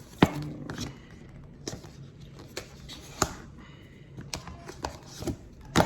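Apple Watch packaging being handled and opened: a series of sharp clicks and knocks of cardboard and plastic, the loudest about a quarter second in, with others about three seconds in and near the end.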